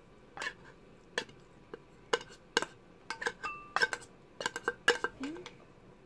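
Metal spoon scraping and clinking against an open tuna can and a small glass bowl while tuna is scooped out: a string of sharp clinks, one ringing briefly about three and a half seconds in.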